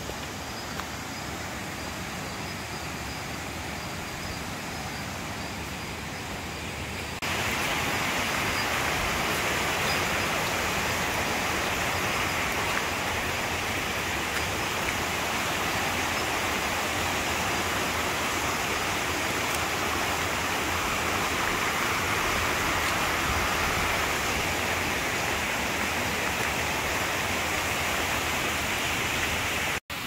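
Steady rushing of a rocky forest stream and small waterfall cascading in white water. It jumps suddenly louder about seven seconds in and then holds steady.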